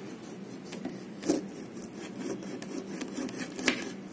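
A kitchen knife slicing through a lemon: a soft scraping of the blade through the rind and flesh, with two sharp clicks, about a second in and near the end, over a faint steady hum.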